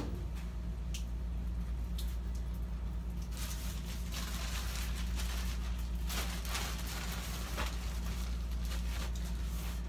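Clothes and plastic packaging rustling as a pile of bagged clothing is rummaged through, over a steady low hum. The rustling is sparse at first and gets denser from about three seconds in.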